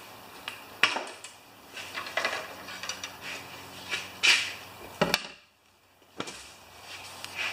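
Knocks and clatter of a walk-behind lawn mower being handled on a plywood-topped work table: the mower set back down on its wheels and its plastic oil fill cap and dipstick pulled out. A few sharp knocks stand out among the lighter rattles.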